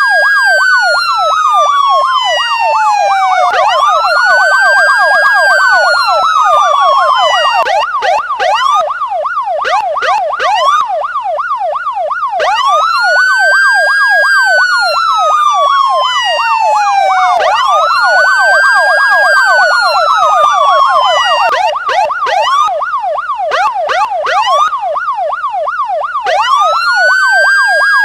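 Electronic police siren sounding a slow wail that rises quickly and falls slowly, repeating about every four seconds, over a fast up-and-down yelp that runs throughout. Twice the wail drops out for a few seconds, leaving only the yelp.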